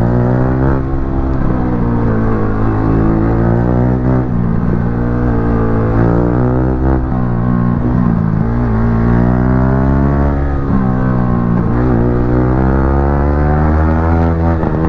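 Yamaha R15 V3's single-cylinder engine running through a loud aftermarket exhaust under riding, its note repeatedly climbing and then dipping as the revs rise and fall.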